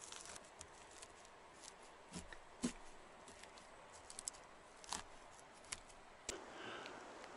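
Faint, scattered crackles and sharp little clicks of dry moss being handled and pushed into the gaps between wall logs, with a handful of louder ticks.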